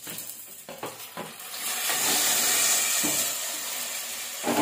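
Chopped tomatoes pushed with a wooden spoon from a plate into hot groundnut oil in a clay pot (mann chatti), first with a few light taps, then hitting the oil with a loud sizzle about a second and a half in. The sizzle settles to a steady frying hiss, and a short knock comes near the end.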